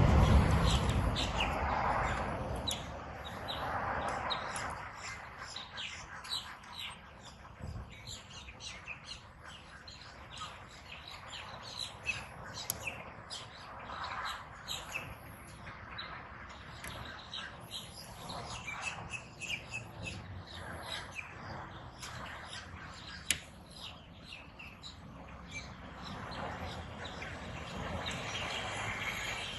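Birds chirping repeatedly over soft outdoor background noise, with one sharp click about 23 seconds in.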